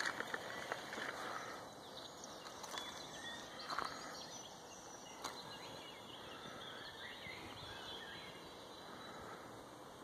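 Quiet outdoor woodland ambience: a steady hiss with a few faint, short bird calls scattered through it and a handful of soft knocks, the loudest in the first second.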